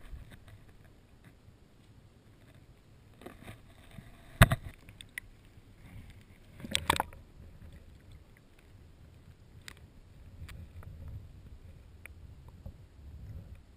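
Muffled water rumble heard through a GoPro Hero2's waterproof housing held underwater in a shallow river, with a single sharp knock a little over four seconds in and a short cluster of knocks near seven seconds.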